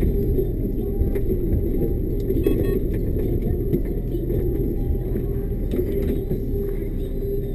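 Cab interior of a loaded timber lorry on the move: a steady low engine and road rumble, with a few faint rattles, most of them about two and a half seconds in.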